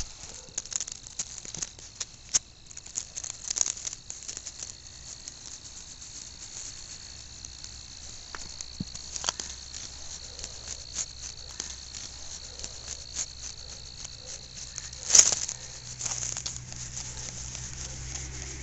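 Insects trilling steadily in one continuous high tone, with scattered light clicks and rustles from the mini pig moving on concrete and grass and being petted. A louder sharp knock comes about fifteen seconds in, and the trilling fades soon after.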